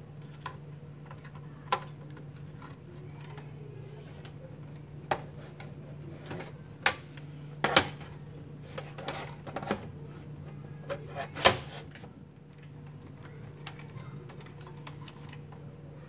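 Irregular clicks and knocks of RAM modules being handled and pushed into the memory slots of an open desktop PC, the loudest a sharp click about eleven seconds in, over a steady low hum.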